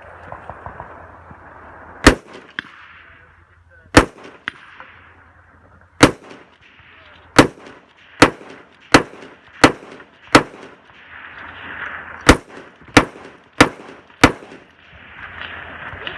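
A rifle is fired in a string of about twelve shots. The first three come about two seconds apart, then the rest follow quicker, roughly three quarters of a second apart, with a short pause in the middle. Fainter cracks follow the first two shots by about half a second.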